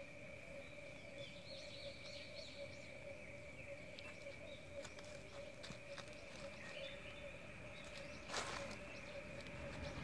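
A cat squatting on dry leaves passes diarrhea, giving small soft clicks and one short sputtering rustle about eight seconds in, over a steady background chorus of frogs.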